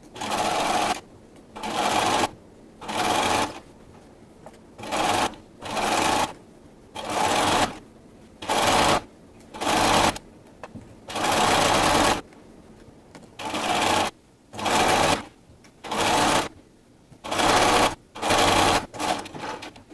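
Bernina sewing machine stitching in about fifteen short stop-start runs, each half a second to a second and a half long, with brief pauses between them. It is topstitching the seam around a knit T-shirt's neckline.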